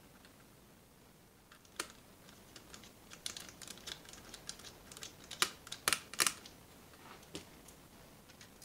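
Irregular light clicks and taps of a precision screwdriver and tiny Phillips screws as the small cover plate over a laptop's battery connector is screwed down, starting about two seconds in.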